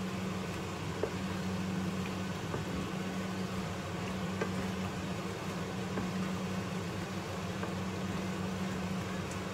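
Tomato-sauced seafood noodles sizzling in a frying pan while being stirred with a wooden spatula, with a few light taps of the spatula on the pan. A steady low hum runs underneath.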